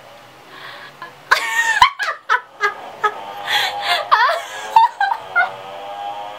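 A woman laughing hard in loud bursts, starting about a second in, over steady background music from the drama playing on her screen.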